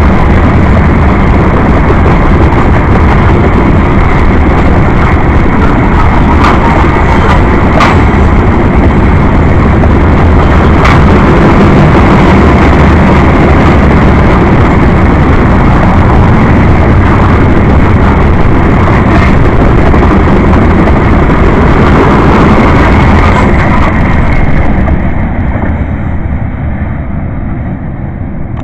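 Freight train cars rolling past close by: a loud, steady rumble and rattle of steel wheels on rail, with a few sharp clanks, falling away about 24 seconds in as the train draws off.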